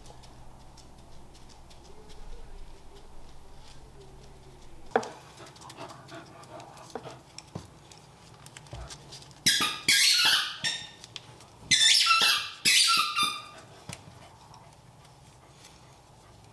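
Corgi giving high-pitched yips and whines in two loud bursts in the second half, the second burst falling in pitch.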